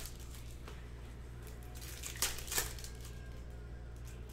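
Foil wrapper of a Topps Chrome baseball card pack crinkling as it is torn open and the cards are pulled out, in a few short rustles, the loudest two about two seconds in. A steady low electrical hum runs underneath.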